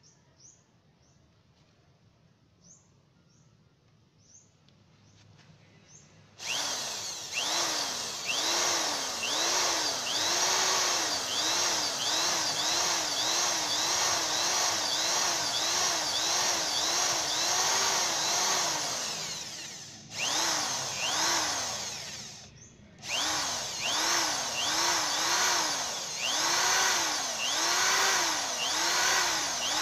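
Electric drill boring into a snapped exhaust stud in a motorcycle's cylinder head, starting about six seconds in. It runs under load with its pitch wavering about twice a second, stops briefly twice past the middle, and starts again.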